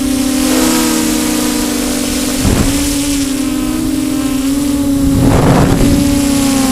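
Small drone's propellers humming steadily, the pitch wavering a little as the motors work against gusty wind of about 20 mph. Wind buffets the microphone twice, about two and a half and five and a half seconds in.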